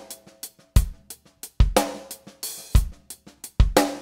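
Intro music: a drum-kit beat with kick drum, snare and hi-hat, a strong low kick about once a second and lighter hits between.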